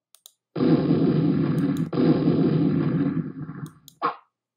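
Intro sound effect: a loud, low rushing noise that breaks off about two seconds in, starts again and fades out, with a few faint clicks and a short burst near the end.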